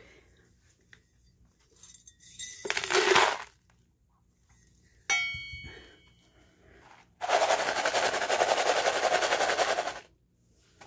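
Crushed gold ore chips rattling: a short pour of gravel into a plastic gold pan about three seconds in, a sharp ringing clink a couple of seconds later, then about three seconds of loud, fast, continuous rattling of the chips near the end.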